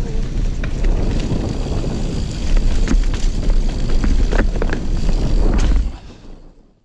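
Wind buffeting an action camera's microphone over the rumble of a mountain bike rolling fast down a rocky dirt trail, with a few sharp clicks and knocks from the bike. It fades out about six seconds in.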